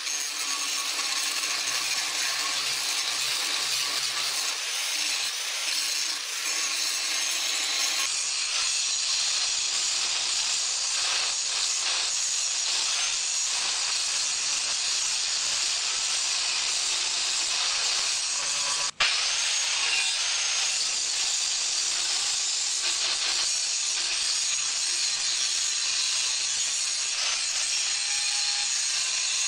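Angle grinder grinding a steel wagon spring clamped in a vise, a steady loud grinding of disc on metal. The sound changes abruptly about eight seconds in and breaks off for an instant near the nineteen-second mark.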